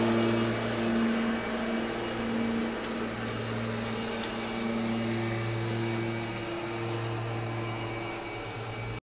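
Ryobi 80-volt battery-powered zero-turn riding mower running with its electric blade motors, giving a steady hum with a whir as the blades mulch leaves.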